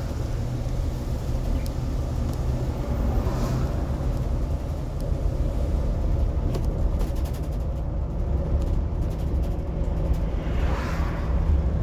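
Inside the cabin of a moving 2018 Blue Bird electric school bus: a steady low rumble of road and tyres with no engine note, light rattling ticks in the middle, and a brief swelling hiss about three seconds in and again near the end.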